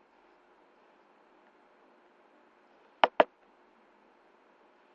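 A computer mouse button clicked twice in quick succession about three seconds in, over faint steady microphone hiss.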